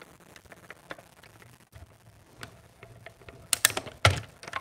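Cutting plates handled and stacked on a mini hand-cranked die-cutting and embossing machine, then the crank turned to feed the plate sandwich through the rollers: light ticks and clicks, then a few sharp clacks near the end.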